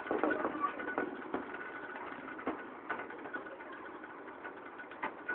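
Riga-12 moped's 50 cc single-cylinder two-stroke engine running steadily, with a few scattered clicks and knocks.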